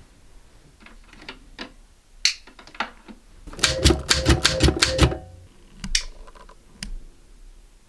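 Vintage manual typewriter being typed on. A few scattered keystrokes give way to a quick run of keys striking for about a second and a half, then two more single strokes.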